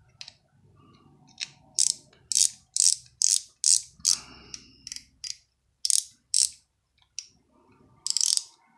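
Front drag knob of a cheap spinning reel being turned by hand, its ratchet giving sharp clicks about two a second, then after a pause a few more and a quick run of clicks near the end.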